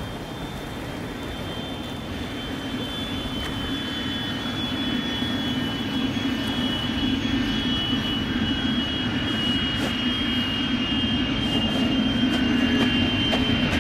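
Jet airliner approaching low overhead, its engines growing steadily louder: a high whine over a low rumble.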